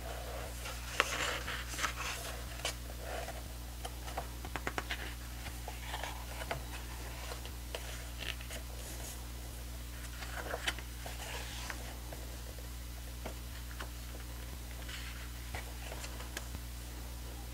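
Heavy glossy pages of a large photobook being handled and turned: paper rustling and sliding in short bursts, with clusters of small clicks a few seconds in. A steady low hum runs underneath.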